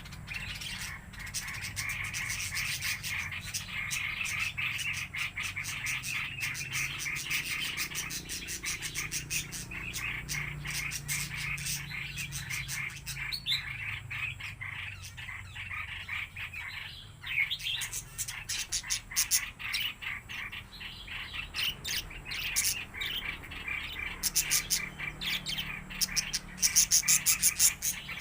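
A flock of small aviary birds chirping and chattering continuously, with rapid, sharp chirps that grow denser and louder near the end.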